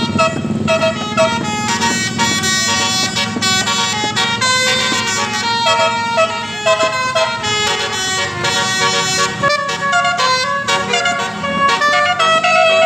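Bus's basuri telolet horn playing a tune: several pitched horn notes changing in quick steps, one after another. The bus's engine rumbles underneath, most plainly in the first few seconds.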